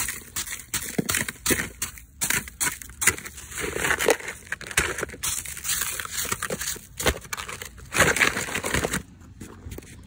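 Snow being scooped and packed into a plastic bucket holding hockey pucks: a dense run of crunching and scraping that stops about nine seconds in.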